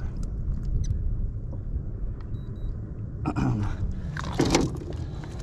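Handling noise from a camera being moved and set up: a steady low rumble on the microphone with scattered clicks, and two louder bouts of rustling and knocking about three seconds and four and a half seconds in.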